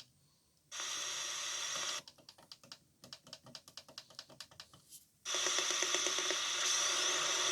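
Shortwave radio receiver between stations: a stretch of static hiss, then a rapid run of clicks as the tuning is stepped, then loud static hiss again from about five seconds in.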